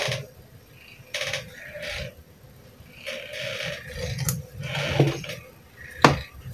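Handling noise from a TV mainboard being worked on by hand on a workbench: scattered rustling and scraping, with a sharp click about six seconds in.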